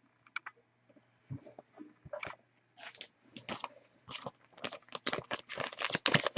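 Close handling of trading cards and plastic card sleeves: scattered small clicks and crinkly rustles, sparse at first and coming thick and fast over the last couple of seconds.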